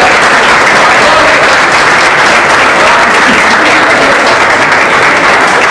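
A large crowd applauding, many hands clapping at once in a steady, sustained applause.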